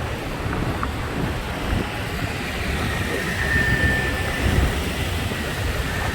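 Busy road traffic running past, a steady low rumble of engines and tyres, with wind buffeting the microphone. A faint high whine sounds briefly about three seconds in.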